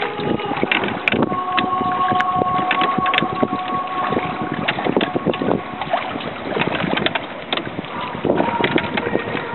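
Oars of a wooden rowing boat knocking in their rowlocks and splashing with each stroke, under a slow anthem tune of long held notes that change pitch every few seconds.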